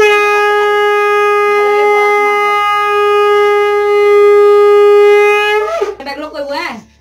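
A conch shell (shankha) blown in one long, steady note that cuts off after about five and a half seconds.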